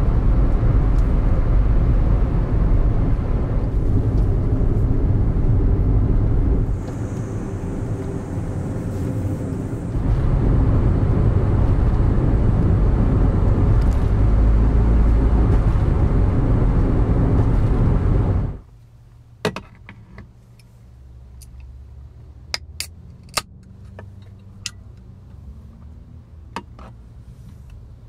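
Steady low rumble of a Daihatsu Wake kei car on the move, easing slightly for a few seconds. About two-thirds of the way through it cuts off abruptly, leaving a quiet background with a few scattered sharp clicks.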